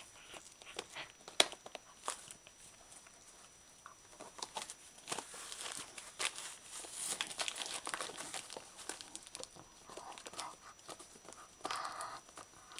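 A dog tearing and crinkling wrapping paper with its teeth and paws in irregular rustles and rips, with one sharp crack about a second and a half in.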